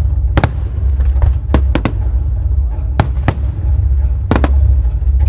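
Starmine fireworks barrage: a string of sharp bangs from aerial shells bursting, several in quick succession, over a continuous deep rumble of the ongoing display.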